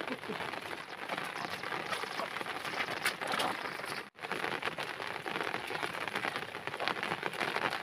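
Steady rain pattering. It cuts out for an instant about four seconds in.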